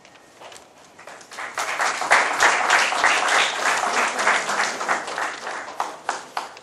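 Audience applauding: a round of hand clapping that builds about a second and a half in and fades toward the end.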